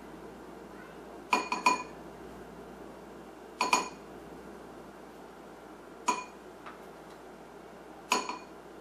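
A spoon clinking against the rim of a bowl as spoonfuls of ground cinnamon are tapped off into it: five short ringing clinks about two seconds apart, the first two close together.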